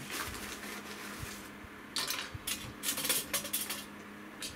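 Metal clinking and clattering of camp cookware and a stainless wood stove being handled. A quick run of sharp metal clinks starts about two seconds in.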